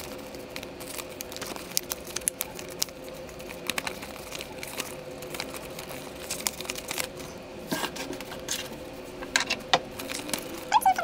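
Sheets of card-stock paper being handled and flexed, with scattered light taps, clicks and crinkles, over a faint steady hum.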